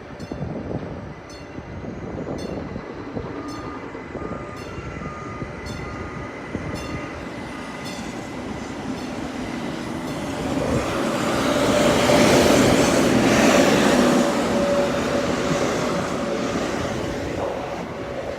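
A train passing on the track: its rumble builds about ten seconds in, is loudest a few seconds later with a steady whine on top, then fades away.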